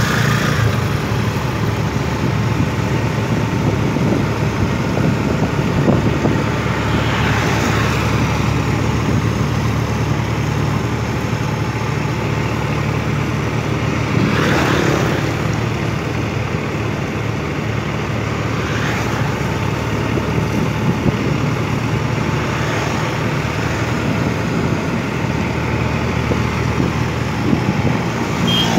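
Road traffic heard from close behind a loaded sand dump truck: a steady engine drone with wind and tyre noise. Several vehicles swish past, the loudest about halfway through.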